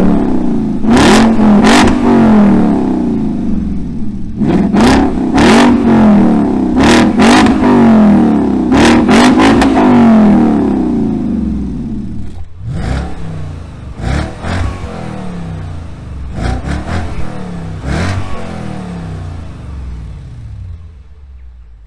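Audi S5's 4.2-litre V8 revving through a Guerrilla Bypass cut-out exhaust: repeated quick throttle blips, each rising and falling in pitch, about every two seconds at first, then quieter and more spaced out in the second half, dying away near the end.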